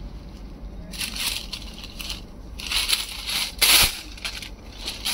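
Crisp kota silk saree fabric rustling in several short bursts as it is handled and spread out; the loudest burst comes nearly four seconds in.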